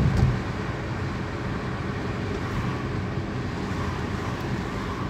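Steady engine and road noise inside the cabin of a moving car, with a brief low thump right at the start.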